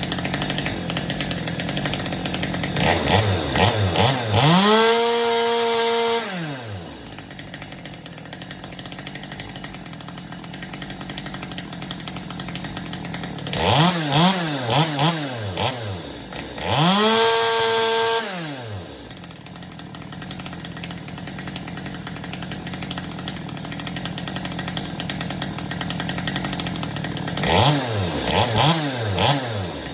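Ported Stihl chainsaw idling, then revved three times, each time with a few quick blips before being held wide open, the first two held for a second or two before dropping back to idle. These are full-throttle test runs for setting the high-speed carburettor jet.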